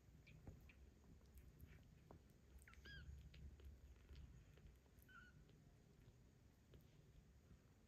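Faint, high-pitched kitten mews: one rising and falling call about three seconds in and a shorter one about five seconds in, over a quiet low rumble.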